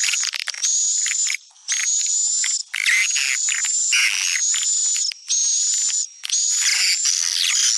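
Recorded swiftlet calling sound (suara panggil walet), the lure track played to draw edible-nest swiftlets to a swiftlet house: loud, high-pitched twittering chirps in phrases of about a second, with short breaks between them.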